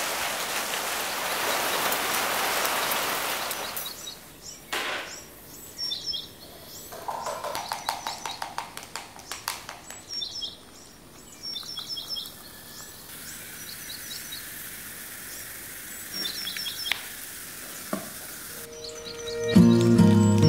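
Steady rain hiss for the first few seconds, then small birds chirping in short repeated calls, with light clinks and taps of a glass and bottle in between. Acoustic guitar music comes in near the end.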